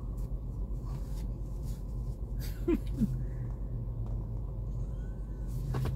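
Steady low rumble of a car heard from inside the cabin, with two short, high, rising squeaks close together about three seconds in.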